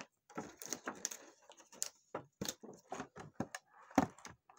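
Fingers picking at and peeling a foil seal off a plastic blister-tray compartment, with irregular small clicks and crackles of the foil and the plastic tray.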